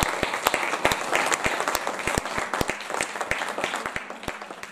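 Audience applause, a dense patter of many hands clapping that gradually dies away toward the end.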